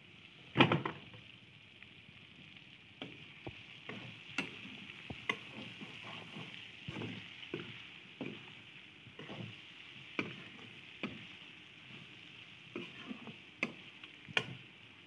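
Pork pieces sizzling in a wok while a metal spoon stirs them, scraping and knocking against the wok's metal sides at an irregular pace, with a steady sizzle underneath. A single loud metal clank comes about half a second in as the wok's aluminium lid is taken off.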